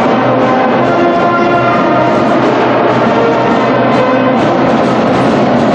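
Music with many held notes at a steady level.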